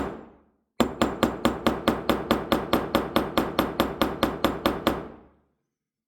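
Small cross-peen hammer tapping rivet heads to peen them over, in a quick even run of light strikes, about five a second. The strikes start after a short pause and stop about five seconds in.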